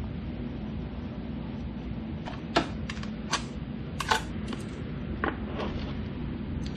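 Sharp, irregular metal clicks and clinks of hand tools on a motorcycle's front sprocket cover bolts, about seven in the second half, over a steady low hum.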